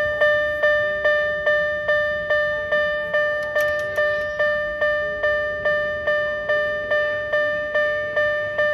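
Japanese level crossing alarm ringing: an electronic bell striking one ringing tone, a little over twice a second, evenly and without pause.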